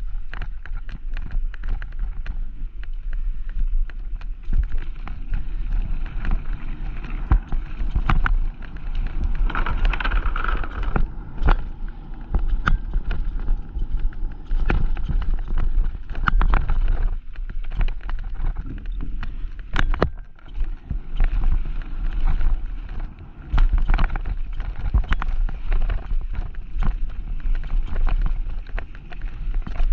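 Mountain bike ridden fast down a dirt bike-park trail. The tyres rumble over the rough ground, and the frame and chain rattle with many sharp knocks over bumps and roots, with wind on the microphone.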